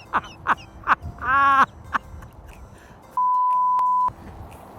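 A steady electronic censor bleep about three seconds in, lasting about a second, with the other sound cut out beneath it. Before it comes a quick run of short falling calls, then one longer wavering call.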